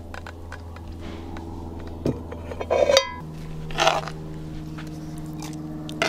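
Cast-iron Dutch oven and its lid clanking: a knock about two seconds in, then a loud ringing metal clank about three seconds in, followed by a short scrape of the serving spoon in the pot.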